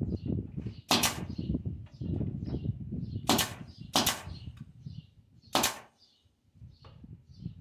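Pneumatic nail gun firing four sharp shots into a wooden cabinet base: one about a second in, two in quick succession around three and a half to four seconds, and one more near five and a half seconds, with lighter knocks of the work between them.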